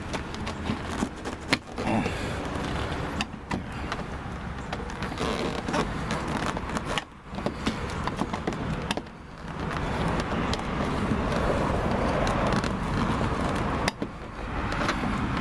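Plastic door-trim pieces and their retaining clips being worked loose by hand from a minivan's front door: a dense run of small clicks, rattles and scrapes, over a steady low hum.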